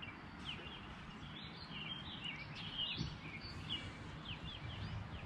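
Small birds chirping, many short quick calls one after another, over a steady low background noise.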